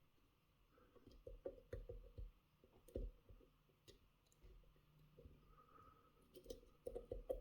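Faint, irregular clicks and light scraping of a lock pick and tension wrench working serrated pins in a pin-tumbler lock cylinder held in a false set, with a few sharper clicks about three seconds in and near the end.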